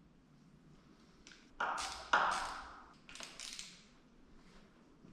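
A few sharp clinks and taps of hand tools and parts being handled. The two loudest come about a second and a half and two seconds in, each ringing briefly, followed by a quick run of lighter clicks.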